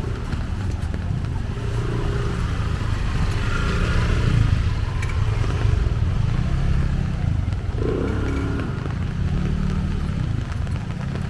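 Motor vehicle engines running close by in a flooded street, their pitch rising and falling several times as they rev and pass.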